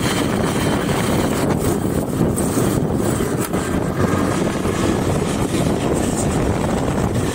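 Steady rush of wind over the microphone and motorcycle noise, heard from the back of a moving two-wheeler.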